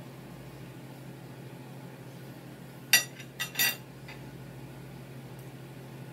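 Cutlery clinking against a plate: one sharp, ringing clink about three seconds in, then two or three lighter clinks within the next second, over a steady low hum.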